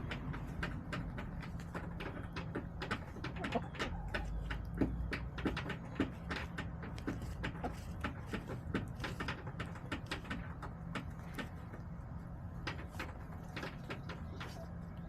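Backyard hens: many quick, irregular taps and clicks, several a second, with soft clucking among them.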